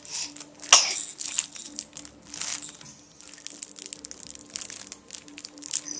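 A short, sharp, hissy sneeze about a second in, followed by a few softer hissing bursts, among crinkly rustling over a steady low hum.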